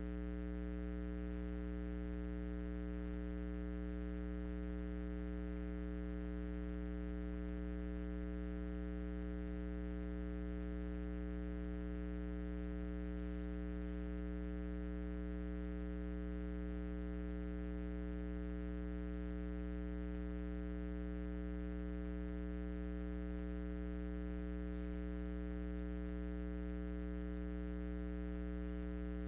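Steady electrical mains hum: a low buzz with many even overtones that does not change.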